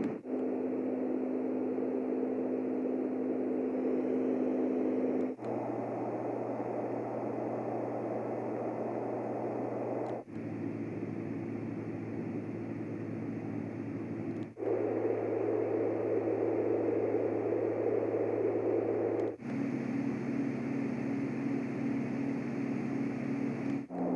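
LectroFan noise machine playing its fan-sound settings one after another: a steady fan-like whoosh with a low hum. About every five seconds it switches to a different fan sound, each switch marked by a brief dropout.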